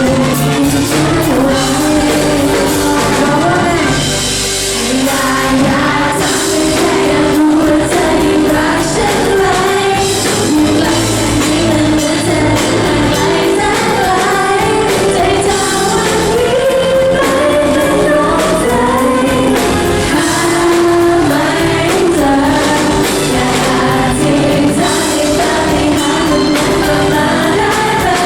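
Thai pop girl group singing a song live over loud amplified backing music with a steady beat.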